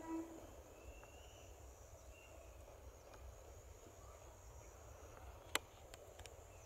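A distant EMU train's horn ends just after the start, leaving the train's faint low rumble under a steady high insect buzz. A single sharp click about five and a half seconds in, followed by a few fainter ticks.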